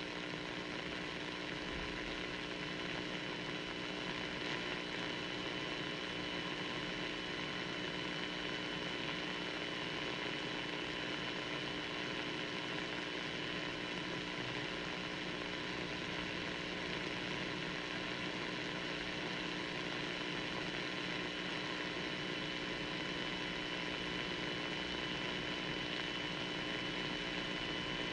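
Radio dead air: a steady hiss with a constant low hum and a faint high whine, and no programme sound. The station has gone silent while it waits for the nationwide Emergency Alert System test to come through.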